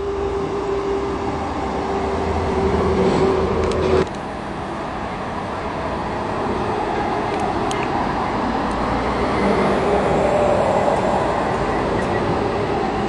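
Road traffic noise with vehicle engines running. A steady engine hum cuts off abruptly about four seconds in, and the traffic noise carries on.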